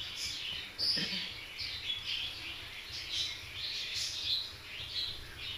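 Birds chirping in quick, irregular short calls, with a soft knock about a second in.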